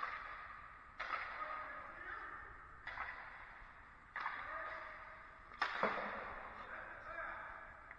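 Hockey pucks being struck, sharp cracks roughly every second or two, each echoing and ringing out through the rink for a second or so; the loudest comes near the end, as a quick double hit.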